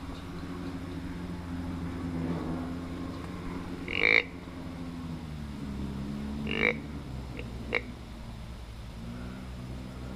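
Three short, raspy animal calls over a steady low hum. The first call, about four seconds in, is the loudest; the second comes about six and a half seconds in, and a brief, fainter one follows about a second later.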